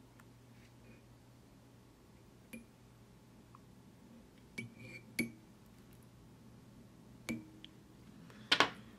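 A few light, sharp metal clicks and clinks, the loudest about five seconds in, as a fly-tying tool touches the hook and vise during a whip finish of the thread at the fly's head.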